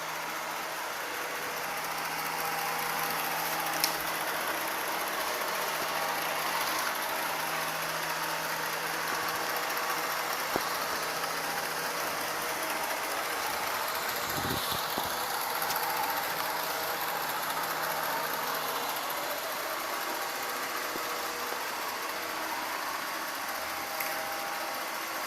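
Ariete Briciola 2711 robot vacuum cleaner running: a steady motor and brush hum with a strong hiss, and a few short sharp clicks, the first about four seconds in and the last near the end.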